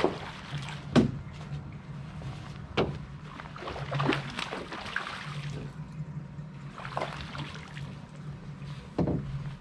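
A hooked largemouth bass thrashing at the surface during the fight, several sharp splashes, the loudest about a second in. A steady low hum runs underneath.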